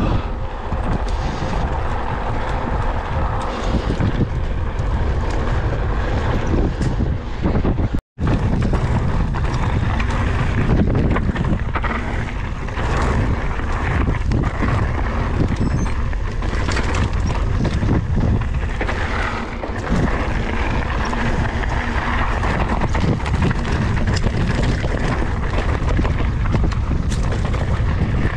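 Wind buffeting an action camera's microphone on a mountain bike ridden fast over dirt trail, with tyre noise and frequent knocks and rattles from the bike over bumps. The sound cuts out briefly about eight seconds in.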